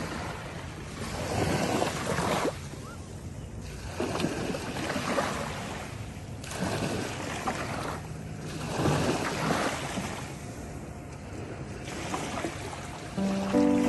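Ocean surf breaking and washing in, with a surge of spray-like hiss about every two to three seconds, each swelling and then falling away. Music with held notes comes in near the end.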